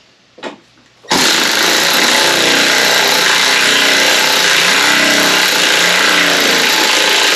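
Loud, steady motor-driven machine noise that starts abruptly about a second in.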